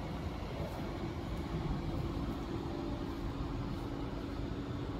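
Steady hum and whir of a coffee vending machine's built-in cooling unit running, with a low steady tone setting in about a second in.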